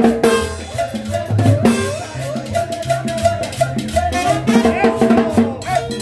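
Live tropical dance band playing: a pulsing bass line under drum kit and percussion hits, with a wavering melody line over them in a steady dance rhythm.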